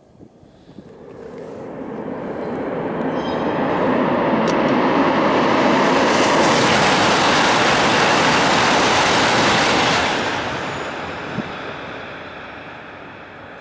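Tohoku Shinkansen high-speed train passing at speed as it comes out of a tunnel: a rushing noise that builds over about four seconds, holds steady, then fades from about ten seconds in.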